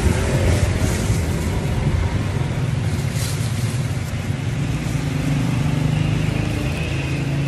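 Thin plastic bag crinkling as it is worked onto a hand, sharpest about three seconds in, over a steady low rumble of vehicle engines.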